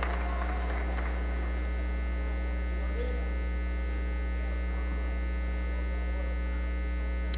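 Steady electrical mains hum: a low, even buzz with a ladder of overtones above it.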